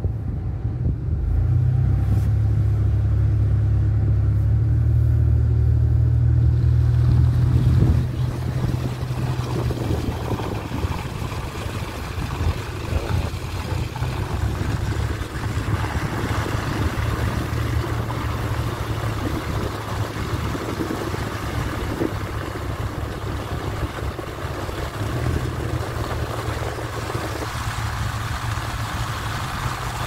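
A car heard from inside the cabin as it drives on a snow-covered road. A low engine drone is loudest for the first several seconds, then it eases into a steady rumble of engine and tyre noise.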